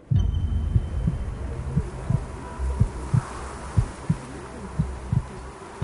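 Deep thumps in pairs, about one pair a second, over a steady low hum.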